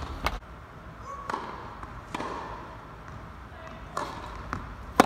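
Tennis ball knocks in an echoing indoor hall: a few scattered bounces and racket hits, a serve struck about four seconds in, and the loudest, sharpest hit right at the end.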